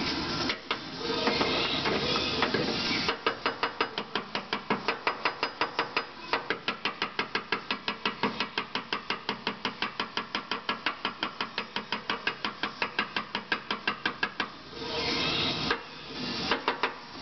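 A stiff brush scrubbing the wet, muddy inner quarter panel of a first-generation Isuzu Trooper. It starts as a steady rushing scrub, turns about three seconds in to quick, even back-and-forth strokes at about five or six a second, and returns to a steadier rushing scrub near the end.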